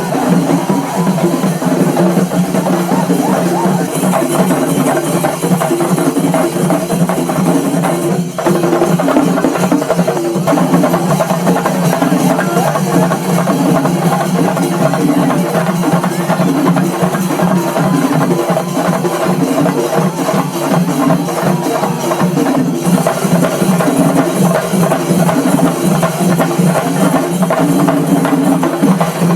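Loud music with drums and percussion keeping a steady, repeating beat.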